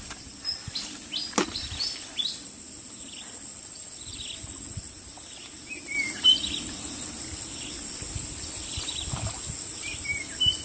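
Insects buzzing in a steady high-pitched drone that grows louder about six seconds in, with wild birds giving short chirps and whistles throughout. A single sharp click comes about a second and a half in.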